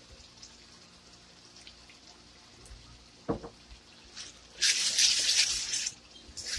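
Wooden spoon stirring tomato paste into onions frying in oil in a wok: a single knock a little past three seconds in, then a short burst of wet sizzling and scraping as the paste is mixed into the hot oil.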